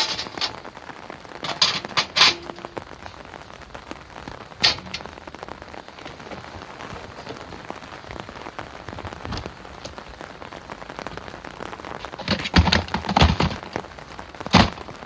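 Heavy rain falling steadily, broken by a few sharp knocks and, near the end, a louder run of clattering knocks.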